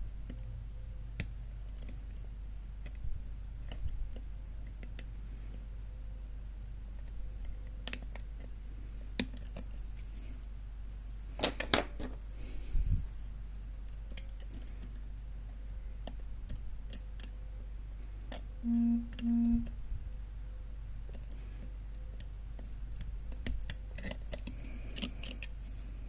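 Steel picking hooks and a tensioner working inside an old Hobbs four-lever lock: scattered light metallic clicks and scrapes as the levers are lifted against their stiff springs, busiest in a short flurry in the middle and again near the end. Twice, a little past the halfway point, a short low buzzing tone sounds over a steady low hum.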